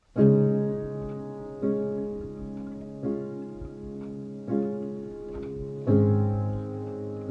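Background music starting suddenly out of silence: slow sustained chords struck about every second and a half, each ringing and fading before the next. A deeper bass note joins about six seconds in.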